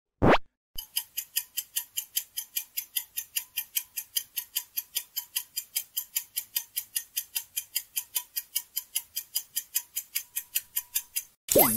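Quiz countdown-timer sound effect: a clock ticking fast and evenly, about four to five ticks a second for roughly ten seconds. It is framed by a short whoosh at the start and another whoosh near the end.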